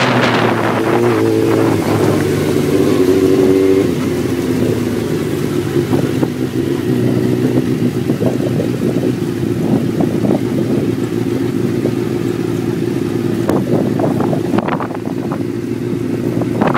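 Suzuki GSX-R sport bike's inline-four engine running at low speed through an aftermarket slip-on exhaust. The pitch shifts up with small throttle changes in the first few seconds, then settles into a steady drone.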